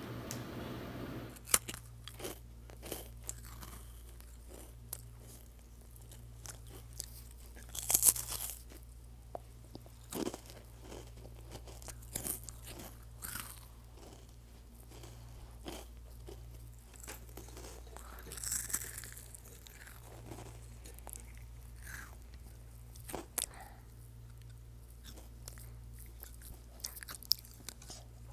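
Crunchy food being bitten and chewed close to the microphone: irregular crunches, with a few louder bites scattered through, over a faint steady low hum.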